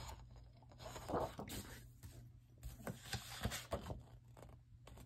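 Sheets of patterned scrapbook paper rustling and sliding against each other as they are handled, flipped over and set aside, with a few soft scrapes and crinkles.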